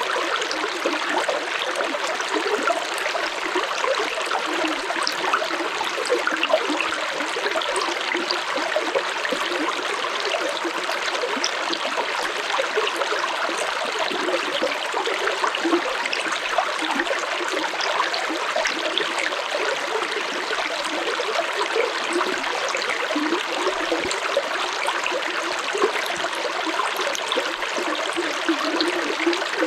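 Flowing stream water: a steady rush with many small splashes and bubbles throughout.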